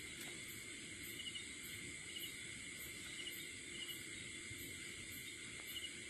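Chorus of night insects: a steady, high-pitched trilling with evenly repeating pulses and short chirps now and then.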